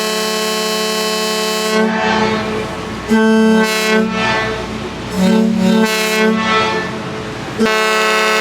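A loud horn sounding. One long blast ends about two seconds in, several shorter blasts follow that shift in pitch, and another long blast starts near the end.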